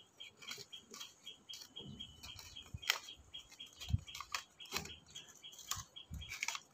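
Light clicks, taps and a few soft thuds of objects being handled on a tiled floor, with a thin high chirp repeating about four times a second behind them.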